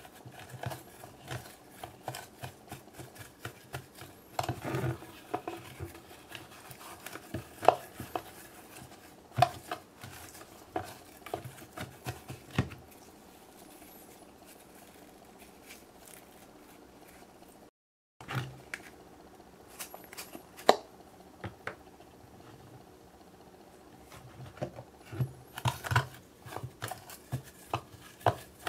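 Fingers stirring and squishing glitter glue slime in a clear bowl, with irregular taps and scrapes against the bowl's sides. It goes quieter for a few seconds partway through while the slime is kneaded by hand, then the tapping and scraping pick up again.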